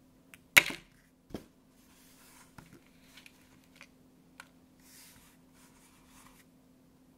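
Hard plastic clicks and taps from AirPods Pro earbuds with foam tips and a clear plastic blister case being handled and set down. A sharp click about half a second in is the loudest, a second click follows about a second in, then softer taps and light rustling.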